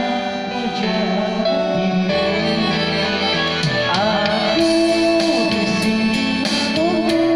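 Pop-rock band music with guitars, held notes and a sliding melodic line that sounds like singing.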